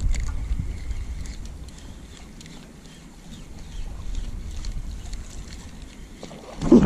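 Wind buffeting an action camera's microphone outdoors, a steady low rumble that swells and fades, with a short louder low burst near the end.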